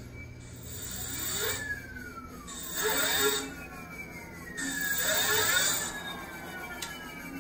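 1000 W electric hub motor in a bicycle's rear wheel, spun up off the ground with the throttle: a whine that rises in pitch with a rush of hiss on each throttle blip, then falls as the wheel coasts down. This happens three times.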